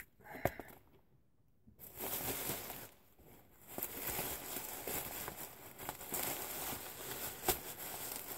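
A single click about half a second in as a clasp knife is opened. From about two seconds in comes continuous rustling, crinkling and tearing as the knife cuts the parcel's bag open.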